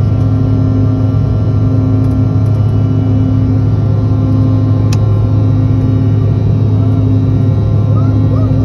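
Airliner cabin noise: jet engines and airflow making a steady, loud drone with a strong low hum, heard from inside the cabin. A single sharp click about five seconds in.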